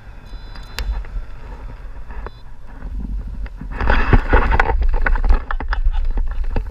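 Wind buffeting the microphone of a camera on a tandem paraglider coming in to land. From about four seconds in, louder scraping, rustling and a run of knocks as the pilot and passenger touch down and slide on the grass.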